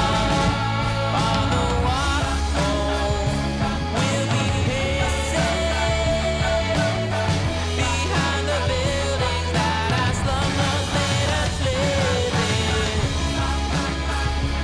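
Background song with a sung vocal over bass and drums.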